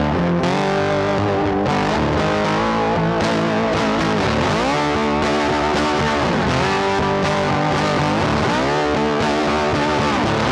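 Background rock music led by a distorted electric guitar, with notes bending up and down.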